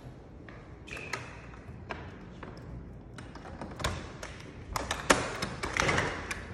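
Taps, clicks and thuds of someone walking on a hard floor and working a door. A few come early, then a dense cluster from about four to six seconds in, loudest just after five seconds.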